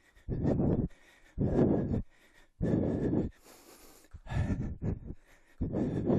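A man breathing hard from exertion mid-workout, with a heavy puffing breath about once a second and a sharper, hissing intake of breath a little past the middle.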